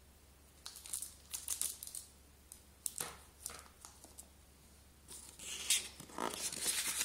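Rustling and scraping of a cardboard tablet box and its paper instruction sheet being handled, in irregular bursts that grow busier and louder over the last couple of seconds.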